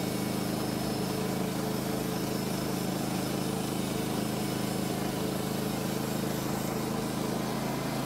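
Portable band sawmill's gas engine running steadily under throttle as the saw head moves along a squared timber, sawing it into 3x3 posts.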